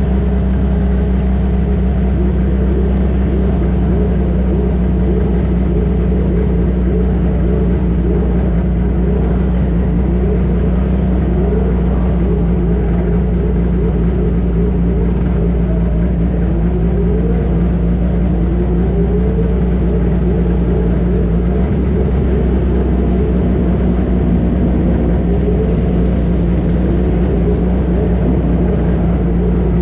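1960s prototype racing car engine running, with a steady low drone and revs that rise and fall again and again.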